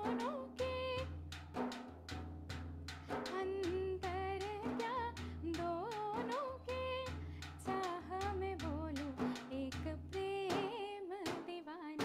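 A woman singing a Hindi film song with drum and bass accompaniment: a wavering melody over a steady beat.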